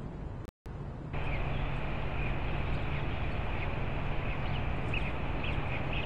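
Outdoor nest-camera microphone picking up a steady rushing background noise with a low hum, with faint short high bird chirps scattered through it. The sound cuts out briefly about half a second in and comes back louder about a second in.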